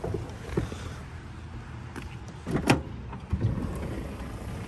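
A few knocks and bumps over a low rumble, with handling noise, as someone moves about inside a camper van carrying drinks to the fridge.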